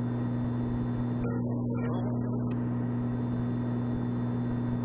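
Piper Mirage's turbocharged six-cylinder piston engine and propeller droning steadily in cruise-climb, heard inside the cabin as an even, unchanging low hum.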